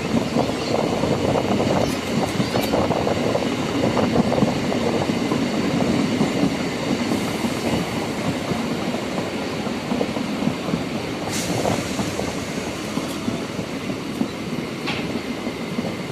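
Train rolling along the track, its wheels clattering steadily over the rails with faint high wheel squeal.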